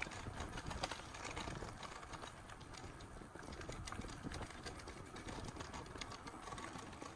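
Footsteps of someone walking, with scattered irregular clicks and taps over a steady low outdoor rumble.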